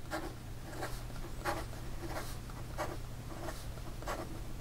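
Fine stainless steel nib of a Caran d'Ache 849 fountain pen scratching across paper in fast writing strokes. It is a quick string of short, light scratches, one for each pen stroke.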